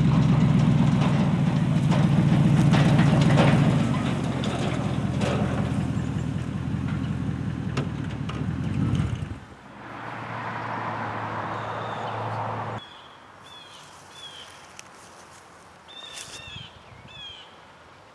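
Pickup truck engine running as it tows a trailer past, with clattering from the trailer; the engine sound drops sharply about nine seconds in and fades out at about thirteen seconds. Birds chirp in short repeated calls near the end.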